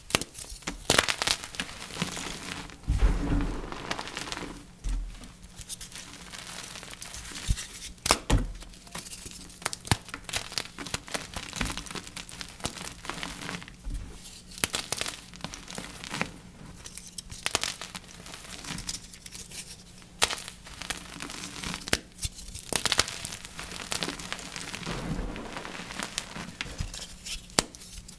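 Flaky blocks of dyed gym chalk being crushed and crumbled by hand: dry, uneven crunching and crackling, with a few heavier dull thumps.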